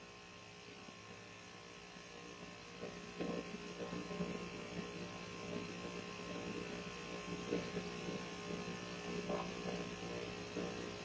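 Steady mechanical hum of a running HVAC unit, which is very loud. From about three seconds in, irregular crackling sounds come and go over it.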